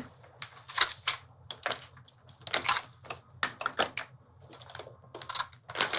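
Rummaging through a handbag: irregular rustling and small clicks and knocks of items being shifted about inside it.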